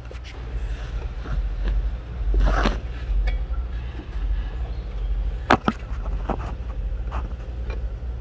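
Hand tools working hose clamps and plastic connectors in an engine bay: a scrape and a couple of sharp clicks, over a steady low rumble of handling noise on the microphone.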